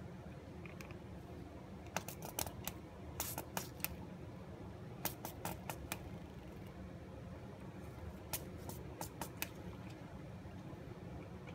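A veiled chameleon chewing a locust: sharp, crisp crunching clicks as its jaws break the insect's shell, coming in three short runs of several bites a second over a steady low hum.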